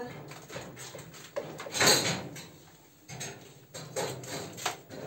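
Hands tossing pieces of food with onions and garlic in a metal baking tray: irregular rustles and light clinks, with one louder clatter about two seconds in.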